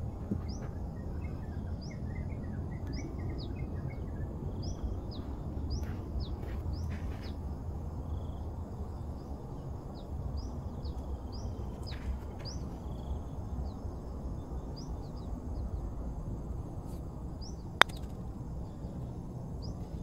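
Birds calling with short, rising chirps again and again over a steady low background rumble. About eighteen seconds in, a single sharp click of a golf club striking the ball.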